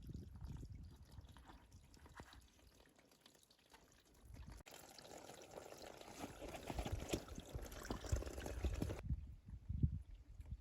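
Running water: a steady splashing hiss that starts abruptly about halfway through and cuts off abruptly near the end, over low dull thumps.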